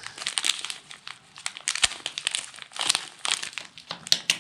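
Sheets of paper crinkling and rustling as they are spread out and handled, with a sharp tap just under two seconds in.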